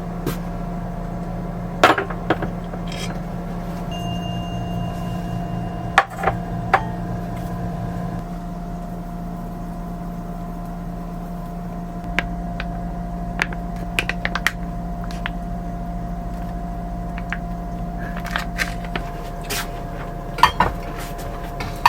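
Dishes and cooking utensils clinking and knocking now and then, the sharpest knocks about two and six seconds in and a cluster near the end, over a steady low hum.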